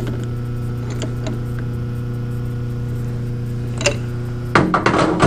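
Colchester 15x48 metal lathe running with a steady motor and gear hum and a few light ticks, then a louder rough scraping burst near the end.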